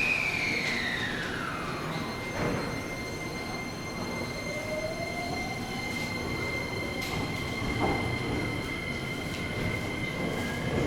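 Shizuoka Railway A3000-series electric train pulling out of the station, its running gear making a high-pitched whine. In the first two seconds a high tone falls, then a steady high tone holds, and a lower tone rises about halfway through, over a steady rumble with a few light knocks.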